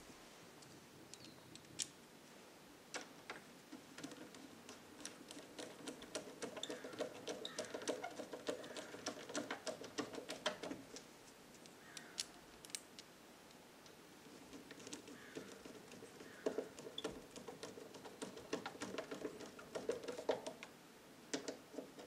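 Rapid, irregular clicking and light metallic rattling of door-knob and latch hardware being worked by hand, in two spells of several seconds with a short pause between.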